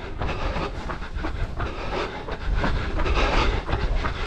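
Rhythmic running footsteps on a paved alley, with a low wind rumble on a body-worn camera microphone.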